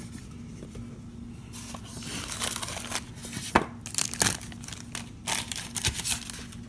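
Plastic packaging crinkling and rustling in short bursts while being handled, with a few sharp clicks in the middle.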